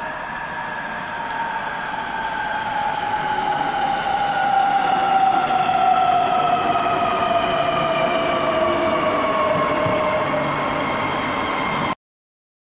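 Electric train slowing down, its traction motor whine falling steadily in pitch as the running noise grows louder. The sound cuts off abruptly near the end.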